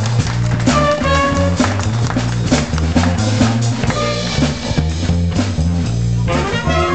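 Live jazz band playing a funk groove: a repeating bass line and drum kit under trumpets, clarinets and flute. About five seconds in the horns drop back, leaving mostly bass and drums, then come back in just before the end.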